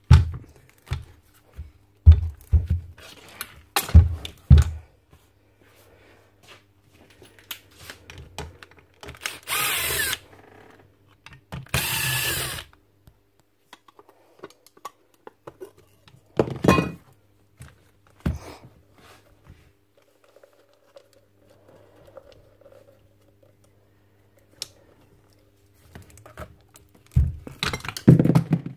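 Tool handling: knocks and clunks, with two short bursts of a power-tool motor near the middle, each about a second long, and a faint low hum coming and going underneath.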